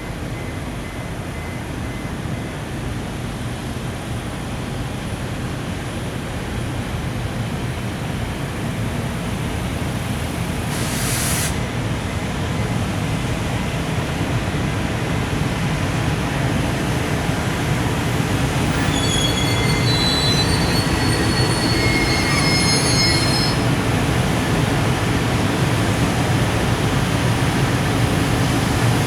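Container freight train hauled by an EF510 electric locomotive pulling away, its running noise growing steadily louder. There is a short hiss about eleven seconds in, and the wheels squeal in high thin tones for a few seconds around twenty seconds in.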